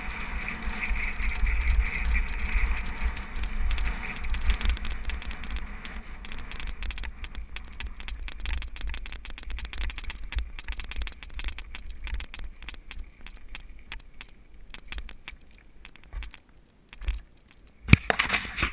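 Mountain bike rolling down a dirt fire road: wind rumbling on the bike-mounted camera's microphone and the bike rattling and crunching over the rough dirt. The wind rumble eases after several seconds, leaving mostly rattling, and there is a sharp knock near the end.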